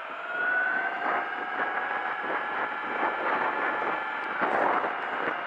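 Razor electric mini dirt bike's motor whining at a steady pitch, rising slightly in the first second as the bike picks up speed, over wind rushing past the microphone.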